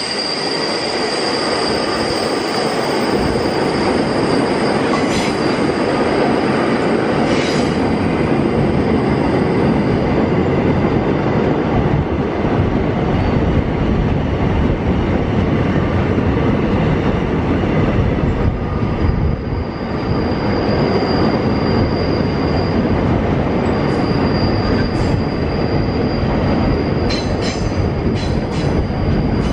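Empty open-top freight wagons rolling past on a curved, uphill track: a steady rumble of steel wheels on rail with a thin, high wheel squeal from the curve that fades around the middle and comes back. A few sharp clicks near the end.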